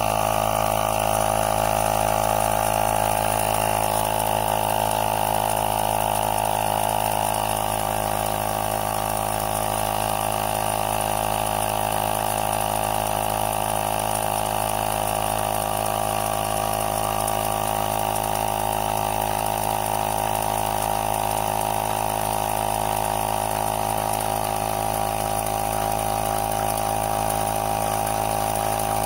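Air pump running steadily with an even mechanical drone, supplying compressed air in place of boiler steam to a cutaway steam locomotive model.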